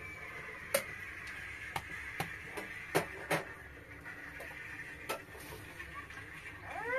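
Metal teapot and glass tea glasses clinking on a tray: about six sharp clinks and taps in the first five seconds, then tea poured into a glass near the end, with a short rising sound. A steady high whine runs underneath.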